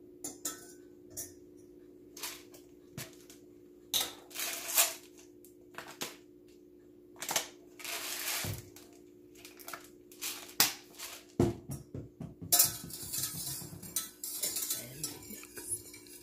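Pepper mill twisted in short crunching bursts over a saucepan. About two-thirds of the way through comes a knock, then a wire whisk beating rapidly against a stainless steel saucepan with fast metallic clinking. A steady low hum runs underneath.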